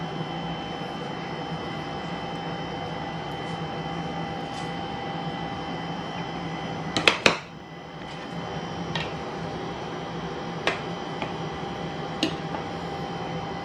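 Steady machine hum with a few sharp clicks, the loudest a quick cluster about seven seconds in, after which the hum briefly drops.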